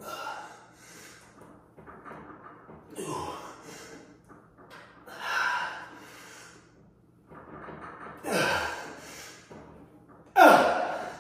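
A man's hard, forceful breaths of effort during hanging leg raises: five sharp exhales or gasps, one every two to three seconds, the last one, as the legs swing up, the loudest.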